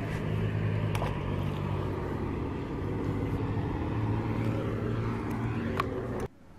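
Steady low hum of a motor vehicle's engine running, with a few light clicks, cutting off suddenly near the end.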